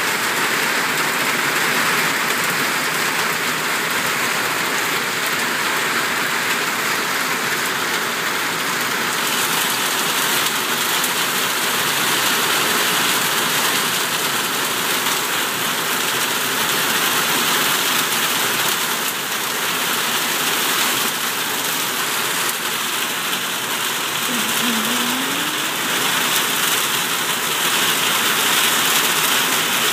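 Heavy rain pouring down steadily onto pavement and ground in a thunderstorm downpour.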